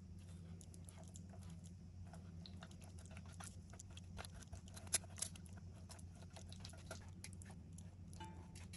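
Silicone spatula pressing and scraping silken tofu through a stainless steel mesh sieve: soft, irregular scraping and squishing with small clicks, and one sharper click about five seconds in. A low steady hum runs underneath.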